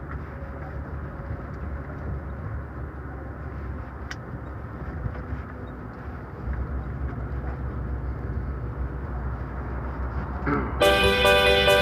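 Steady road and engine rumble of a moving vehicle, heard from inside it. Background music comes in near the end.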